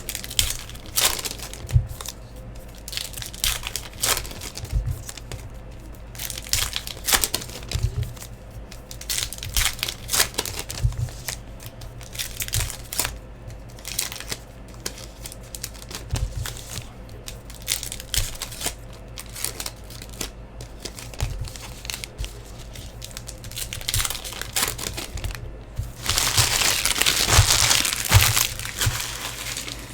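Trading-card pack wrappers being torn open and crinkled in short rustling strokes, with a longer, louder stretch of crinkling a few seconds before the end.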